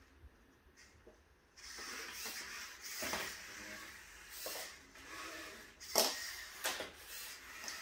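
LEGO Mindstorms EV3 robot's motors whirring as it drives and moves its arm, with plastic clicks and knocks from the LEGO parts and game pieces, the loudest knock about six seconds in. It starts about a second and a half in.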